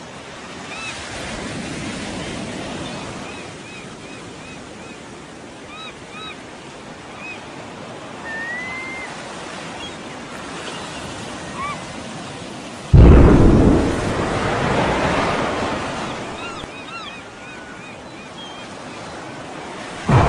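Surf washing steadily on a shore with scattered short high chirps, then about 13 seconds in a sudden, very loud explosion boom that rumbles and slowly fades; a second sudden blast hits right at the end.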